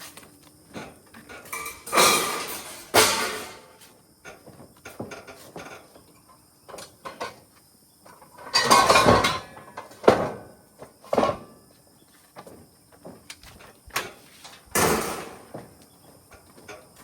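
Scrap metal being handled and dropped, clattering and scraping in four or so loud bursts with small knocks and clicks in between.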